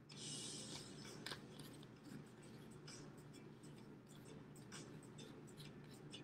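Faint scratchy swishes of a paintbrush stroking wet paint onto a paper plate, a longer hiss about a second long at the start, then short scattered strokes over a low steady room hum.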